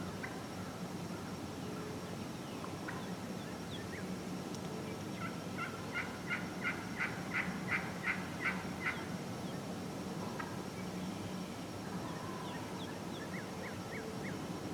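Turkey yelping: a run of about a dozen evenly spaced yelps, about three a second, building in loudness and then stopping. Faint chirps from small birds are heard here and there.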